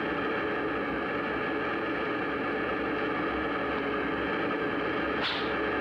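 Cartoon sound effect of a vacuum machine running: a steady whirring drone, with a brief high whoosh near the end.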